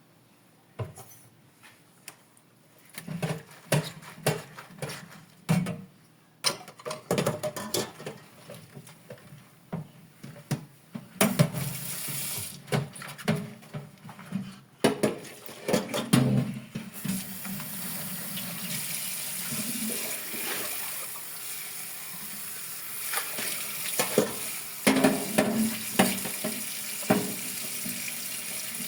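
Dishes being handled and knocked together in a kitchen sink, then a tap running steadily into the sink from about halfway through, with more clinks of dishes being washed under the water near the end.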